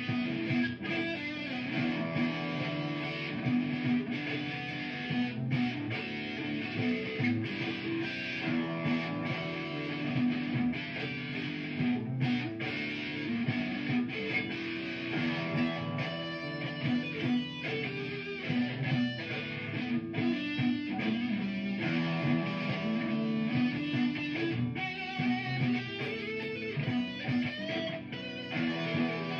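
Electric guitar played through effects pedals, improvising a solo over a looped guitar part. The notes run on continuously.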